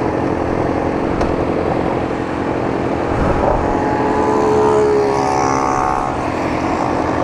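Motorcycle engines idling, among them a Kawasaki ZX-6R's inline-four, with an engine's note rising and falling from about three to six seconds in as the bikes creep forward at low speed.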